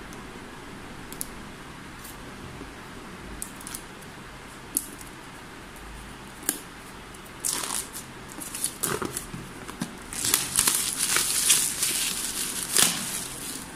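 Clear plastic shrink wrap being slit and peeled off a cardboard product box. A few small isolated clicks come first; then the film crinkles, building to a dense spell of crackling plastic from about ten seconds in that dies away near the end.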